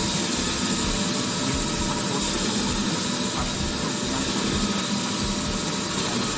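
Concrete-cutting machinery running steadily, an engine-like drone with a constant high hiss over it.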